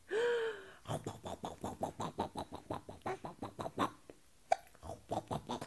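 A short hummed 'mmm', then a rapid run of wet smacking and munching mouth noises, about six a second, from a woman playfully nibbling and kissing a baby's cheek. A few more smacks come near the end.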